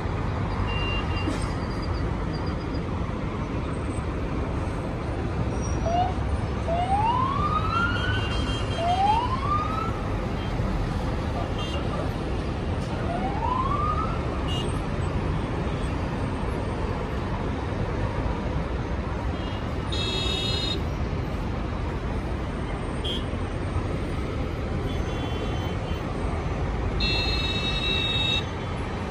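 Steady road-traffic noise from a jammed main road. A police siren gives three short rising whoops about a quarter to halfway through, and two brief high-pitched blasts sound later on.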